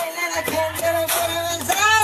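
A song playing: a singing voice over a beat, with a low bass note coming in about a third of a second in.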